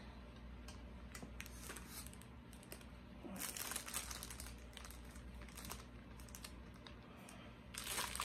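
Clear plastic wrapping crinkling, with small clicks and taps, as the plastic-bagged gooseneck arms of an LED grow light are handled and worked onto its clip mount. The crackling comes in short bursts, strongest a little over three seconds in and again near the end.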